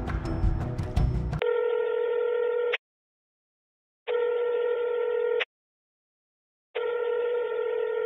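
Telephone ringing: three even rings of about a second and a half each, with silent gaps between them. Music plays until the first ring starts, about a second and a half in.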